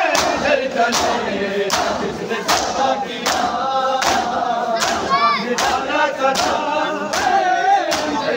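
A crowd of male mourners chanting a noha lament in unison while beating their chests in matam, all together in time: a sharp collective slap about every three-quarters of a second over the continuous massed voices.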